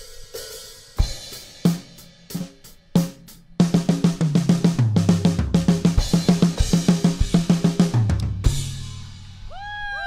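Rock drum kit playing a song intro: scattered hi-hat and cymbal hits and a short fill, then a fast driving beat of about six hits a second over low pitched notes from about three and a half seconds in, ending on a cymbal crash that rings out.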